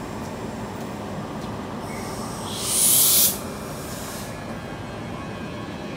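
A short burst of hissing air, under a second long, about halfway through, over the steady rumble of a train: typical of a train's air brakes or door pneumatics venting.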